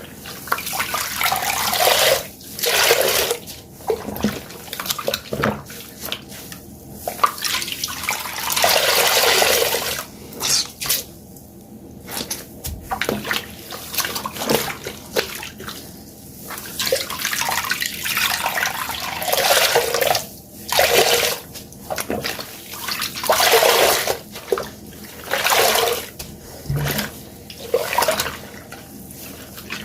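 Water-soaked sponges squeezed again and again close to the microphone, water squelching and streaming out. The squeezes come irregularly, some short and some drawn out over a second or two.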